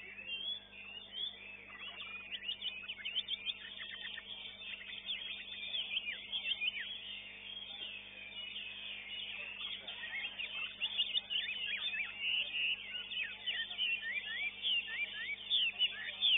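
Caged contest songbirds singing continuously: a busy stream of fast, high chirps and whistled trills.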